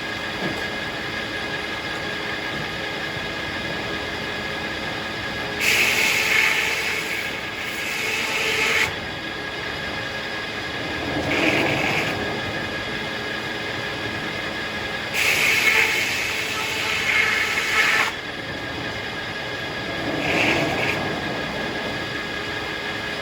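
Circular sawmill running steadily while its blade makes two cuts through a hackberry log, each about three seconds long. A shorter, lower swell of noise follows each cut.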